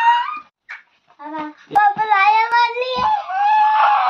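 A little girl's long, high-pitched excited squeals, the pitch sliding up and down: one ends just after the start, and a longer one runs from about a second in. A couple of sharp knocks fall in between.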